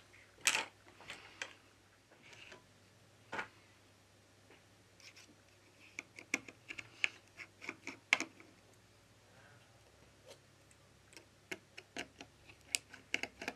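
Light clicks and ticks of a precision screwdriver working the tiny screws of an iPhone 11's metal connector bracket. A few single clicks come first, then two quick runs of ticks, about six seconds in and near the end.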